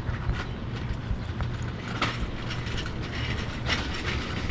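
Cargo van driving slowly, heard from inside the cab: a steady low engine and road rumble with scattered knocks and rattles.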